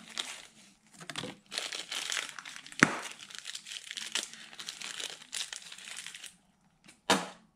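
Thin plastic parts bags crinkling as they are handled and torn open by hand, with a sharp snap about three seconds in and a knock near the end.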